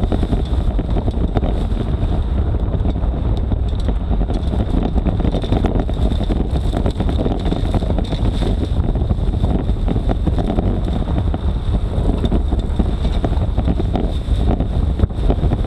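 Jeep driving with a homemade side-mounted mower chopping through tall grass and brush: loud, steady noise of engine, cutter and grass strikes, with heavy wind buffeting on the side-mounted microphone.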